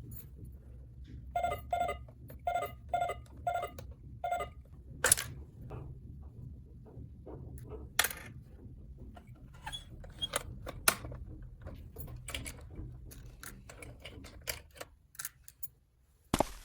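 Small plastic toy pieces clicking and tapping as they are handled, with a run of five short, evenly spaced beeps early on.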